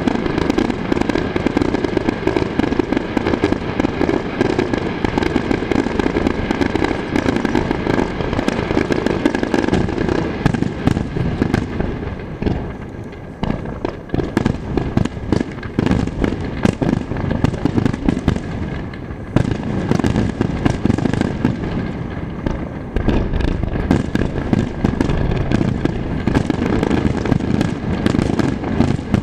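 A computer-timed starmine fireworks barrage: shells bursting in a dense, continuous run over a steady rumble, thinning briefly around the middle before building again.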